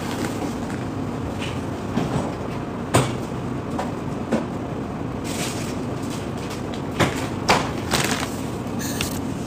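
Scattered knocks and clatters of kitchen items being handled and put away while tidying, over a steady background hum. The sharpest knocks come about three seconds in and again three times between seven and eight seconds.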